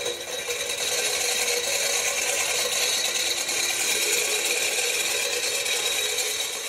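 Stainless-steel corn mill grinder running steadily as it grinds dried corn into grits, a dense, even grinding noise.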